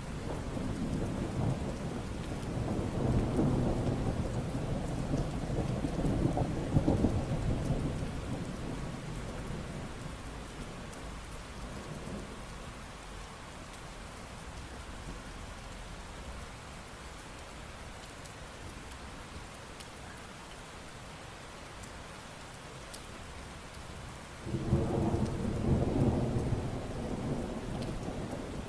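Steady rain falling, with rolling thunder. A long low rumble over the first several seconds fades away, and near the end a new roll of thunder breaks in suddenly.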